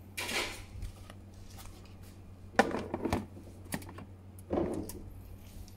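A few light clicks and rustles of handling, over a low steady hum.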